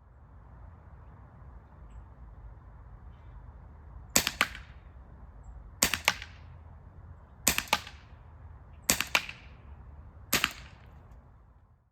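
Five shots from an ASG CZ75 SP-01 Shadow CO2-powered non-blowback airsoft pistol, spaced about a second and a half apart. Each is a sharp snap followed closely by a second snap. A steady low rumble of wind runs underneath.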